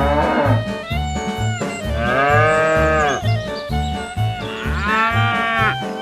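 Cow moos: one call trailing off just after the start, then two long calls about two and four and a half seconds in, set over background music with a steady beat.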